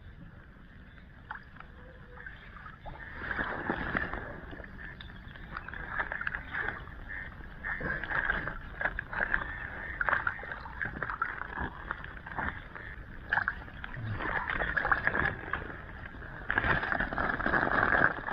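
Water splashing and sloshing in irregular bursts as a fishing net is pulled and handled in creek water, with small knocks mixed in; the busiest splashing comes near the end.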